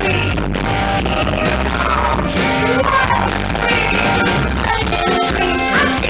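Live rock band playing, with electric guitar, drums and a woman singing, recorded through a camera's microphone that makes it sound dull and poor.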